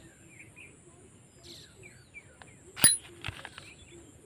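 Outdoor rural ambience with small birds chirping and a faint steady high-pitched tone, broken by one sharp click a little before three seconds in, the loudest sound, with a few softer clicks after it as the tiller's rotary parts are handled.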